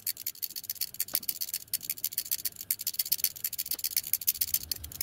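Mechanical ratchet-driven oil lubricator worked by hand: its ratchet pawls click in a fast, steady run of light metallic ticks as the arm is rocked back and forth, pumping thick gearbox oil through its non-return valve.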